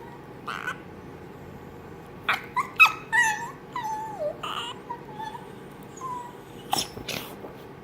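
Small dogs, a miniature pinscher and a toy fox terrier, play-wrestling: high-pitched whining that wavers up and down, broken by short sharp yips, with a cluster of yips about a third of the way in and again near the end.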